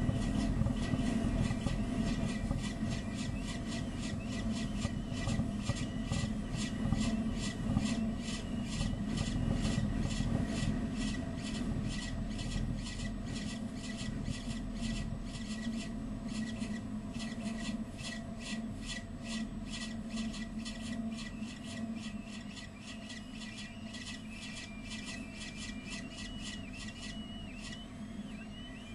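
Downy raptor chicks in a nest box giving a fast, even series of short high cheeps, about three a second, over a steady low hum.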